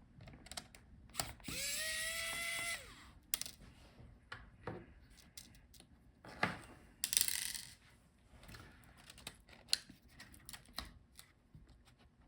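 Small electric screwdriver spinning up with a rising whine and running for about a second and a half as a laptop motherboard screw is backed out. Around it are scattered clicks and taps of small screws and tools on the plastic chassis, with a short rattle about seven seconds in.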